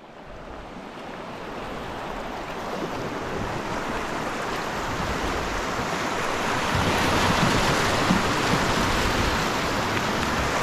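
Rushing whitewater of a river rapid: a steady rush that grows louder over the first several seconds, with wind noise on the microphone.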